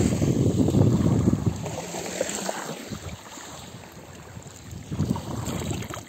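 Wind buffeting the phone's microphone, a loud low rumble for about the first second and a half that then drops away, leaving a quieter wash of small waves at the water's edge, with a short gust again near the end.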